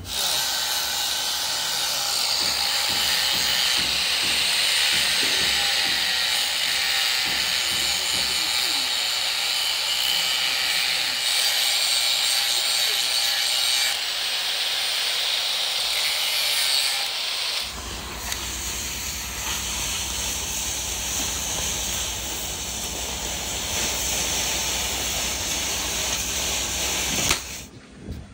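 Angle grinder with its disc grinding down a weld on a steel excavator wheel hub, a steady high-pitched grinding. About two-thirds of the way through the sound turns suddenly deeper and heavier, then it cuts off shortly before the end.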